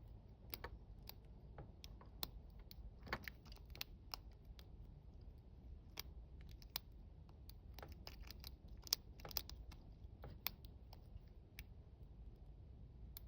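Faint, irregular small clicks and scrapes of a lock pick and tension wrench working the wafers inside a Gorilla Guard padlock.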